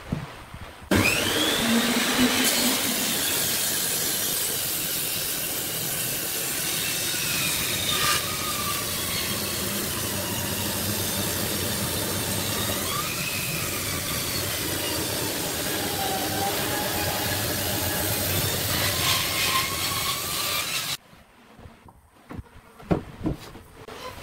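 Bench-mounted table saw ripping a thick wooden board along a fence: the blade bites into the wood abruptly about a second in and cuts steadily with a whine that wavers in pitch as the board is fed, then goes quiet suddenly near the end, leaving a few light knocks as the wood is handled.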